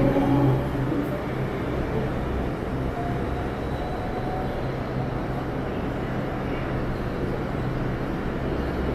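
Delhi Metro train moving along the platform, several motor tones fading in the first second, followed by a steady low hum and rumble.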